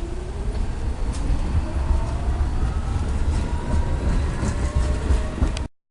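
A train rolling along the rails: a steady low rumble with slowly gliding squeals and scattered clicks from the wheels. It cuts off suddenly near the end.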